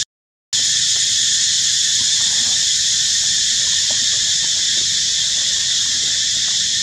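Steady, high-pitched chorus of insects buzzing without a break. It cuts out completely for about half a second just after the start.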